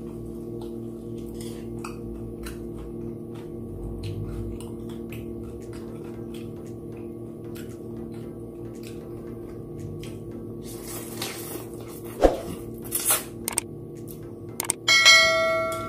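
Soft background music with faint ticking. About eleven seconds in come wet slurping and chewing of japchae glass noodles, with one sharp click. Near the end a bright bell-like ding rings out and fades, the chime of a subscribe-button animation.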